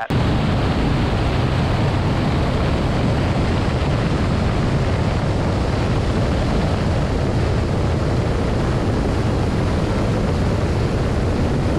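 Steady rush of wind over a camera mounted outside a Velocity canard aircraft in cruise flight, with the low drone of its pusher engine and propeller underneath.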